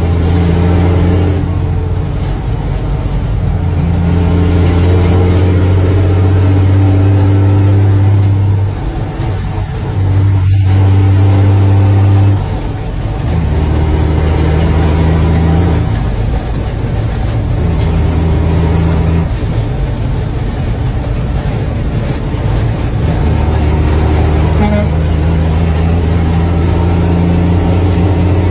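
Heavy truck's diesel engine running under load, heard inside the cab. Its note breaks and settles at a new pitch several times as the driver shifts through the gears of a manual transmission.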